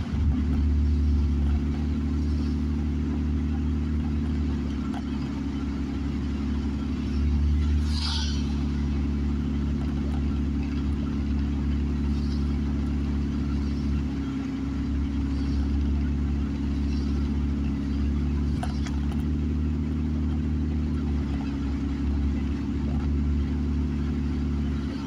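Car engine running and tyre noise on a wet road, heard from inside the cabin while driving: a steady low hum. A brief click comes about eight seconds in.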